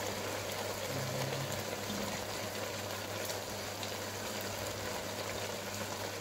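Pot of beef pulao cooking on the stove with its water cooked off, a steady hiss with a low hum underneath and faint scattered pops.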